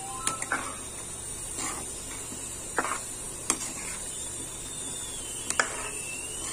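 Steel spoon stirring thick simmering pav bhaji in a pan, knocking sharply against the metal about five times over a steady hiss.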